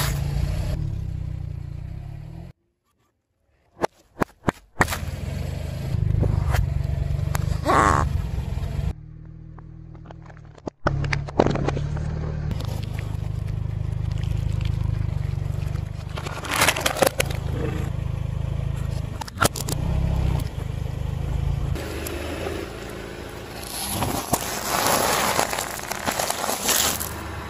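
Car tyre slowly rolling over and crushing a run of objects, among them corn puff snacks, an egg and glass marbles, with crunching, crackling and scraping over a low rumble of tyre and engine. The sound breaks off abruptly between clips, with a brief dead silence a few seconds in and sharp cracks around it.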